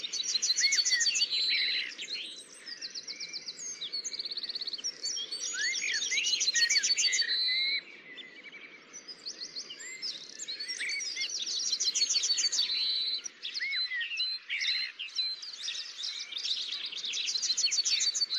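Several songbirds singing together: overlapping high chirps and fast rattling trills, with a faint hiss of background noise underneath.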